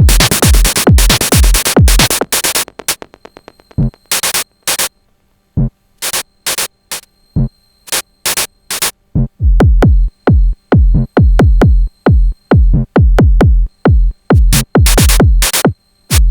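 Techno beat from a Sonic Potions LXR-02 digital drum machine. A steady kick with loud noisy hits drops out after about three seconds into a sparse break of short percussion hits and clicks, with a quick roll, and the kick comes back in about nine seconds in.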